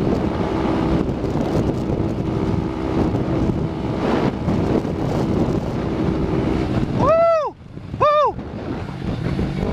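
Wind rushing over a motorcycle rider's helmet-camera microphone, with the motorcycle's engine humming steadily underneath. About seven seconds in come two short shouts a second apart, each rising then falling in pitch.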